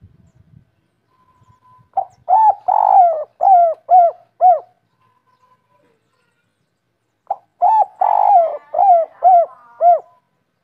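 Spotted dove cooing: two phrases, each a string of about six short arching coos, the first starting about two seconds in and the second about seven seconds in.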